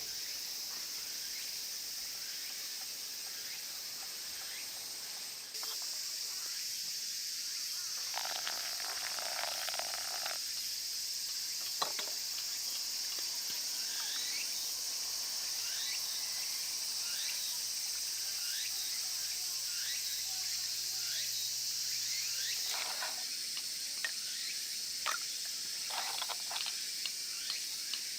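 Food frying in a pan: a steady sizzle with scattered pops and crackles, and a few sharp clicks near the end.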